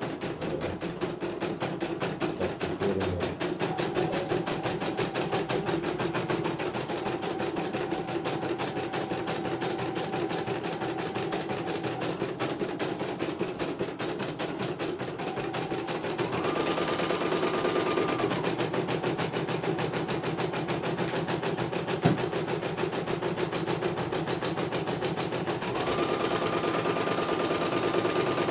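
CNY computerized embroidery machine stitching a design: a rapid, even needle clatter. A steady whine comes in twice in the second half, and there is one sharp click a few seconds before the end.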